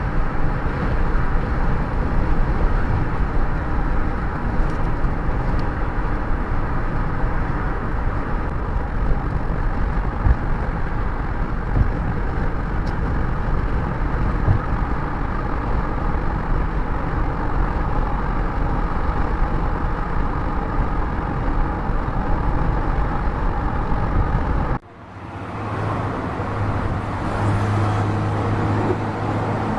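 Car engines running: a steady, loud rumble, then a sudden cut about 25 seconds in to a quieter, steady low engine hum that grows louder near the end.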